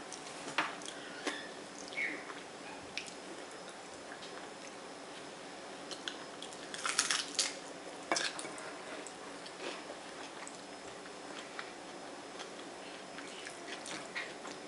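Close-up eating sounds: lettuce tacos being chewed and handled over a plate, with scattered small clicks and crunches and a quick cluster of them about seven seconds in.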